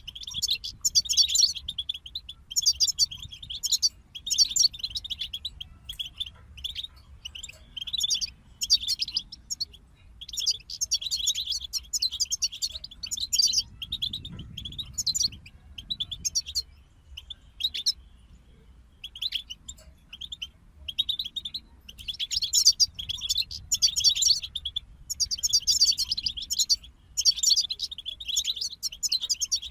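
European goldfinches singing: rapid, twittering phrases broken by short pauses, with a brief lull a little past halfway.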